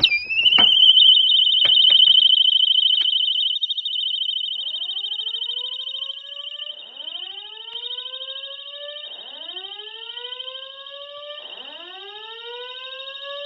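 Building fire alarm system going into alarm. A high, fast-warbling tone starts suddenly and holds steady, with a few clicks in the first seconds. From about four seconds in, a rising 'whoop' sweep joins it and repeats about every two seconds: the slow-whoop evacuation tone.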